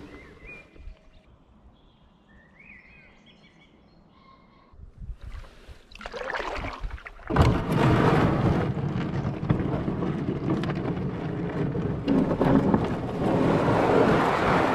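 Birds calling thinly over quiet water, then, about halfway through, a sudden loud scrape as the canoe's hull runs onto river shingle. A continuous gritty grinding of hull and pebbles follows as the canoe is hauled along the gravel bank.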